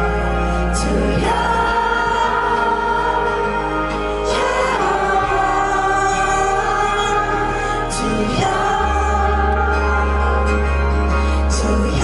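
Live pop-folk band music: a male singer holds long wordless notes that glide to a new pitch every few seconds, over strummed acoustic guitar and a steady bass.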